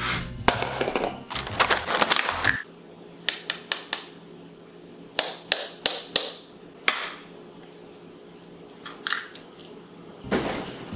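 Eggs being tapped and cracked against the rim of a mixing bowl: a series of sharp, separate cracks and taps. Background music plays at the start, stops about two and a half seconds in, and comes back near the end.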